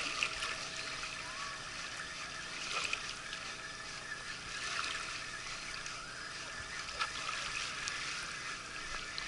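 Small river waves lapping at a muddy bank: a soft, steady wash of water with a few faint clicks.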